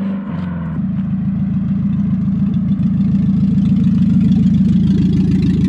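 Nissan 240SX's KA24DE 2.4-litre inline-four running at low revs: a steady hum for about the first second, then settles into a low, fast pulsing note that grows slightly louder as the car rolls up close.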